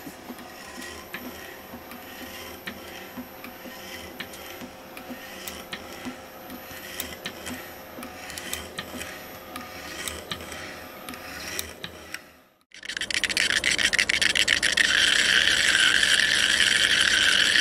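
Shaper head on a milling machine cutting slots into a metal heat-exchanger ring, the tool scraping through the metal in repeated strokes. About thirteen seconds in this gives way to a louder, steady crackling buzz: a home-made EDM machine sparking under its dielectric fluid.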